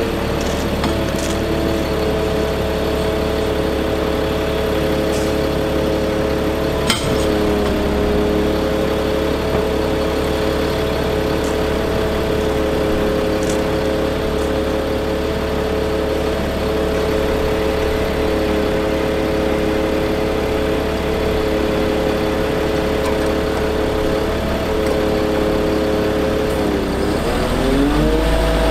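Caterpillar C7 inline-six diesel of a bucket truck running at a steady speed, powering the hydraulics while the aerial boom is worked. Near the end its pitch drops briefly and climbs back up. A single sharp click about seven seconds in.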